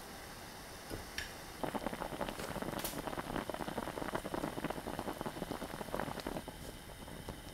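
Braising liquid with dried pollack pieces boiling hard in a pot. After a faint steady hiss, a dense, fast bubbling and crackling sets in about a second and a half in and eases near the end.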